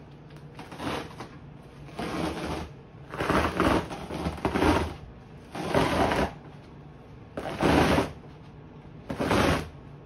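Old shag carpet being pulled up by hand, ripping and tearing free of the horsehair padding beneath in about seven separate pulls, each lasting under a second.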